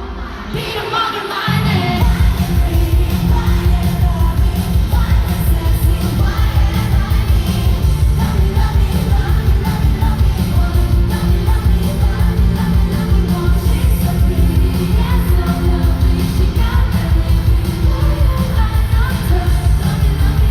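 K-pop song played loud through a concert sound system, singing over a steady, heavy beat that comes in about a second and a half in.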